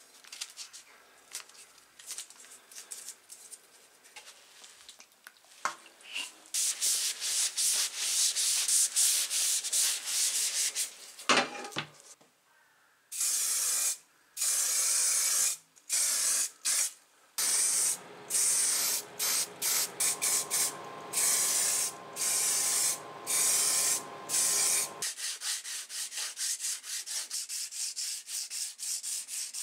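Faint crackle of masking tape being handled on tin-snip handles. Then long hissing bursts of spray paint with short gaps between them, a single knock, and a steady hum under the later bursts. Near the end comes wet sandpaper rubbing back and forth over the painted handles in quick even strokes.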